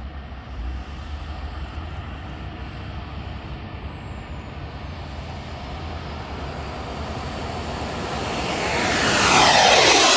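Radio-controlled T-one J-10 model jet flying by: faint at first, it grows steadily louder over the last few seconds and passes close overhead at the very end, its sound sweeping in pitch as it goes over. A steady low rumble sits underneath throughout.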